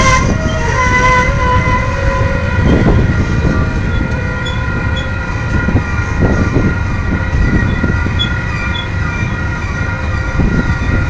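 Loaded coal train's gondola cars rolling past close by: a heavy steady rumble of steel wheels on rail, with wheel flanges squealing in several steady high-pitched tones and a few louder knocks from the cars.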